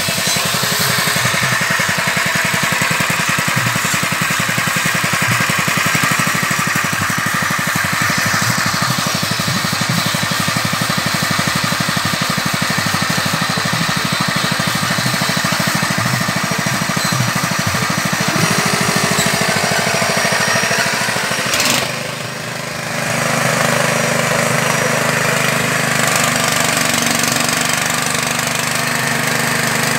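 Small engine driving a mini extruder for floating fish-feed pellets, running steadily with a fast even beat. It drops briefly about 22 seconds in and then goes on with a steadier low note.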